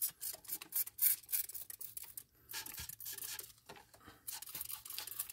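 Hand trigger spray bottle squirting WD-40 again and again onto salt-corroded reel parts: a quick run of short hissing spritzes, with a brief pause about two seconds in. The spritzes thin out near the end.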